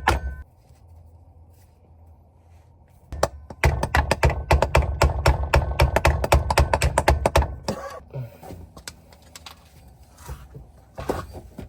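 Impact wrench hammering on a differential mounting bolt in one long burst of rapid blows lasting about four seconds, with a short tail of the same at the very start and a few loose knocks near the end.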